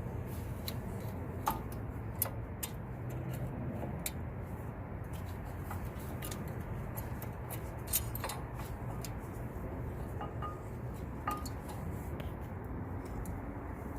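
Light metallic clinks and clicks, a few seconds apart, some with a short ring: new brake pads and their metal clips being handled and fitted into the caliper bracket. A steady low rumble sits underneath.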